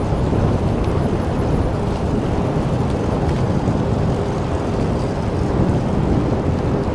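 Wind buffeting the microphone outdoors over open water: a steady, loud low rumble with no clear rhythm.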